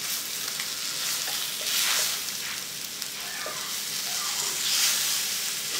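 Chicken tenders sizzling steadily in hot oil in a cast-iron skillet, with a few light clicks and scrapes of metal tongs turning them in the pan.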